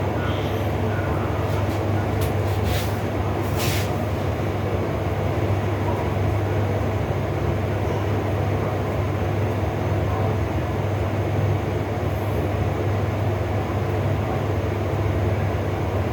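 Steady low rumbling hum, with a few short clicks about two to four seconds in.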